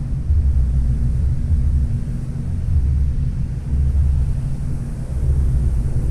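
Boat engine running steadily: a low rumble with a steady hum that swells and dips every second or so.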